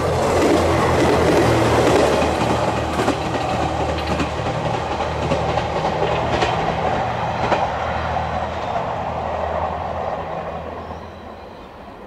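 A train passing close by at speed: a steady low hum with its wheels clacking over the rail joints, fading away near the end.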